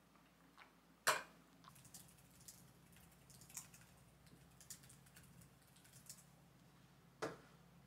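Light, irregular typing on a compact keyboard with round keys, with two louder key knocks, one about a second in and one near the end.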